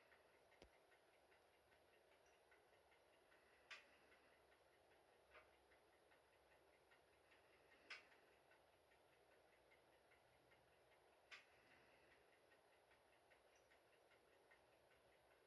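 Faint crackling of a dying wood fire in a stove-fireplace: a steady scatter of tiny ticks from the burning-down embers, with a sharper snap every few seconds, five in all.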